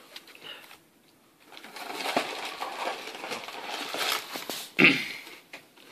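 Rustling and small clicks of trading cards being handled and slid across a play mat, starting about a second and a half in, with one louder, short sharp sound near the end.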